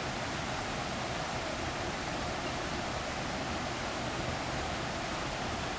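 Steady, even rushing of flowing water with no splashes, knocks or other distinct events.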